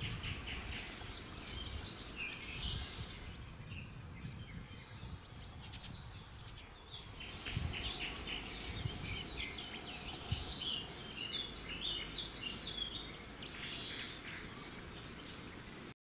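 Small birds chirping and twittering in quick, overlapping calls, busiest in the second half, over a low background rumble. The sound cuts off suddenly near the end.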